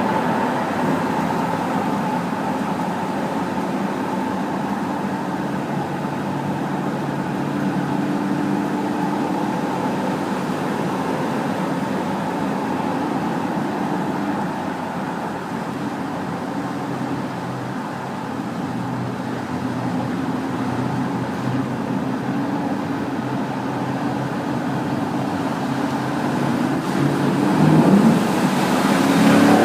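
Porsche Cayenne GTS engine and exhaust rumbling in a road tunnel, holding a steady pace, then revving up with a rising pitch near the end.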